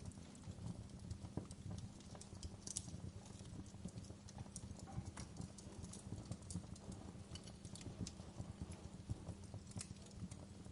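Fireplace fire crackling: irregular sharp pops and snaps over a faint, steady low rumble of flames.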